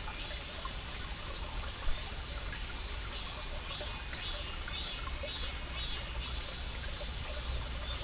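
Small mountain stream trickling and splashing over rocks, with a cicada's pulsing song, about two pulses a second, from about three seconds in to just after six seconds. A single short knock sounds about two seconds in.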